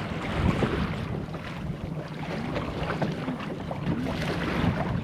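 Water sloshing and splashing against a fishing kayak's hull as it moves along, with wind rushing on the microphone.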